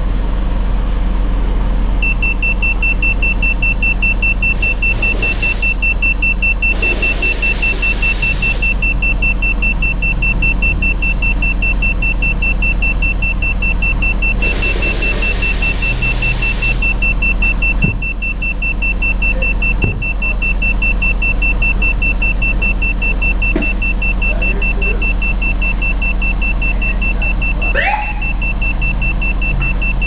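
2017 Ford Police Interceptor Utility idling, its exhaust a steady low rumble close by at the tailpipe. From about two seconds in, a high electronic beep tone sounds continuously: the handheld CO meter alarming as its reading climbs past 100 ppm. Hiss rises briefly twice.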